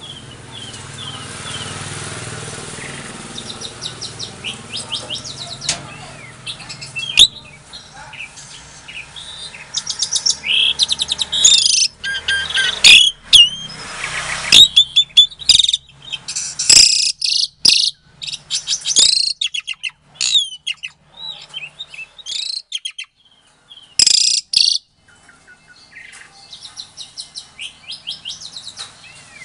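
Pied starling (jalak suren) singing a long, varied song of whistles, chirps and harsh rasping notes. It starts quietly and becomes loud and rapid about a third of the way in, in bursts separated by short pauses.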